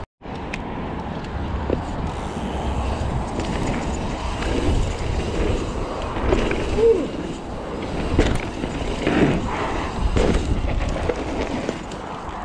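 Mountain bike rolling fast over a dirt trail: steady tyre rumble with scattered knocks and rattles from the bike.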